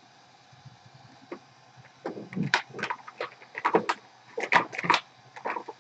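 Small hard objects being handled on a workbench: after a quiet start, a quick, irregular run of clicks and knocks for about three and a half seconds.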